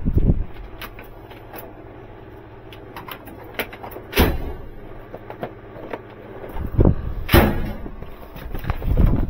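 Metal roller tool chest drawer sliding open, then shut, with the screwdrivers in its tray clattering; the two loudest clatters come about four seconds in and about three seconds later, between scattered knocks and steps.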